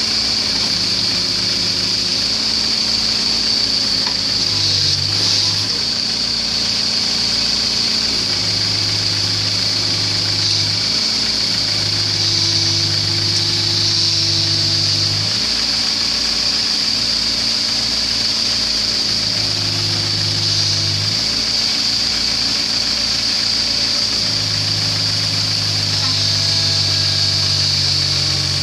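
Case mini excavator's diesel engine running under hydraulic load as the boom and tracks work to climb it onto a flatbed truck; the engine note steps down and back up every few seconds as the hydraulics take and release load, with a steady high-pitched hiss over it.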